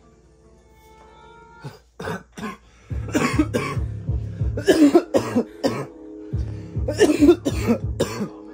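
A person coughing hard in several fits over background music with sustained tones and a low beat.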